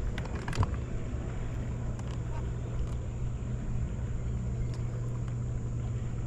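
Boat motor running steadily with a low hum, a couple of knocks sounding in the first second.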